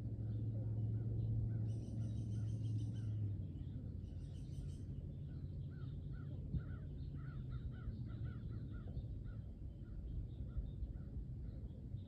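Wild birds calling: two longer high calls about two and four seconds in, then a run of short repeated chirps, over a low steady rumble that fades out about three seconds in.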